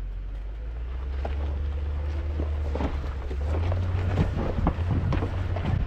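Off-road vehicle's engine running low and steady, rising in pitch about three and a half seconds in, with rocks crunching and cracking under the tyres on a rocky trail.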